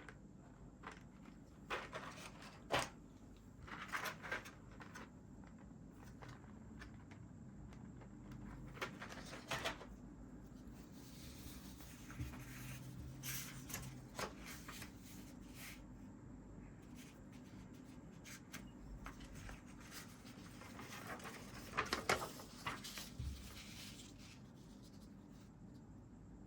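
Keycap set packaging being handled during unboxing: scattered taps and clicks with soft rubbing and scraping of box and plastic, the loudest clicks about three seconds in and about twenty-two seconds in.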